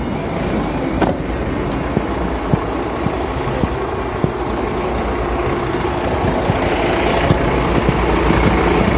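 Fire engine's engine running, a steady, noisy sound with a few short knocks, growing slightly louder toward the end.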